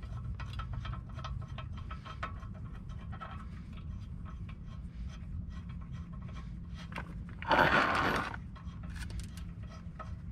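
Socket wrench working a 19 mm rear caliper bracket bolt loose: small metallic clicks and scrapes throughout, with a louder scraping burst lasting under a second about three-quarters of the way through.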